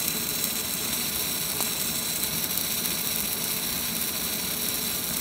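Fiber laser marker engraving a metal plate: a steady high hiss with a thin, even whine running through it.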